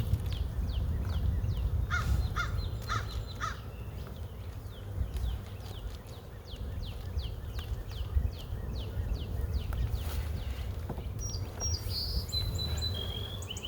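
A crow cawing several times over a steady low rumble, with a small bird repeating quick, high, falling chirps and a few whistled notes near the end.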